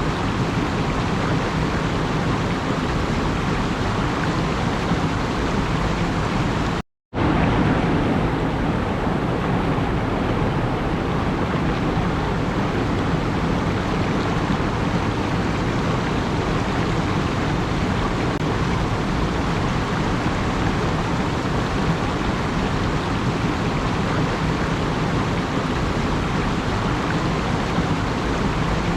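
A steady, even rushing noise that cuts out completely for a moment about seven seconds in, then resumes unchanged.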